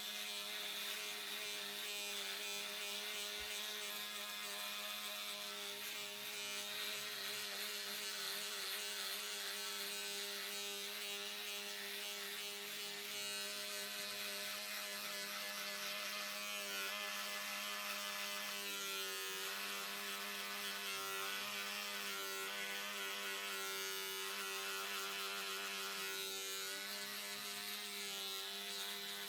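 Electric hair clippers running with a steady buzz, the higher overtones wavering a little in the second half as they cut.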